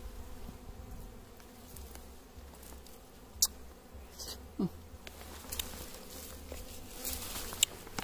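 Small wild honeybees (dwarf honeybees) buzzing steadily around their comb, with one bee flying close past the microphone about halfway through in a short falling buzz. A few sharp clicks are heard, around three and a half seconds in and near the end.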